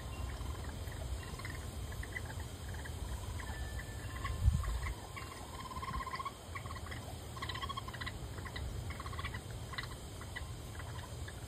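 Raccoon kits chittering and trilling as they feed, in many short rapid trills that come one after another, over a steady low rumble. A single thump about four and a half seconds in is the loudest sound.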